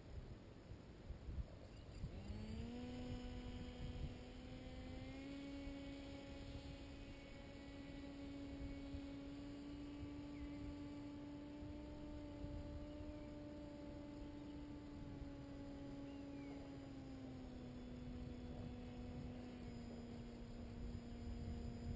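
Paramotor engine and propeller heard at a distance, a faint steady hum that sets in about two seconds in, rises in pitch twice over the next few seconds, holds, then drops slightly in pitch near the end.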